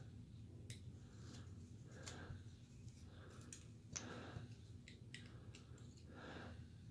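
Carving knife making small slicing cuts in basswood: faint, irregular clicks and short soft scrapes as the blade works in and chips come away.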